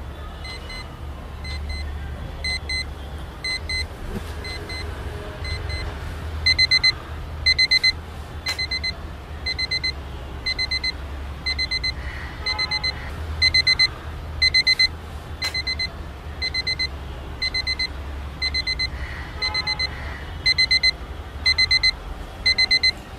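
Orpat quartz alarm clock beeping its alarm: short high beeps in quick groups, repeating about once a second, louder from about six seconds in. A steady low hum runs underneath.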